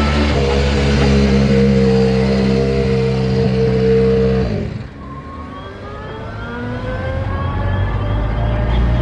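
Hyundai i20 N Rally1 rally car's turbocharged four-cylinder engine running at a steady, low-speed drone as it rolls past close by. About halfway through the sound drops away sharply, then the engine note climbs in pitch and grows louder as the car accelerates away.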